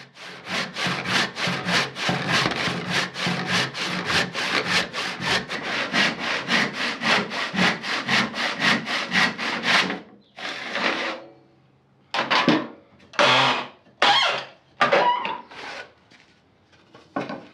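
Handsaw ripping along a beech board in a steady rhythm of quick push-pull strokes, resawing it to thickness. The rhythm stops about ten seconds in, followed by a few separate scrapes.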